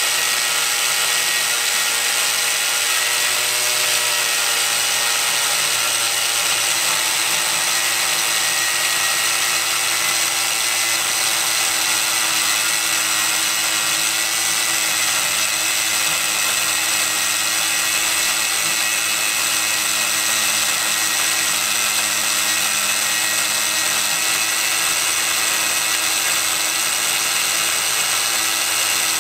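Electric angle grinder with an abrasive cutoff wheel cutting through 3/16-inch steel, running steadily under load with the hiss of the wheel biting the metal. The motor's pitch sags a little over the first several seconds, then holds steady.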